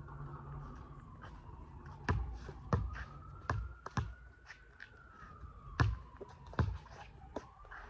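Basketball bouncing on an outdoor hard court as a player dribbles: about seven irregularly spaced bounces starting about two seconds in. A faint tone slowly rises and falls in the background.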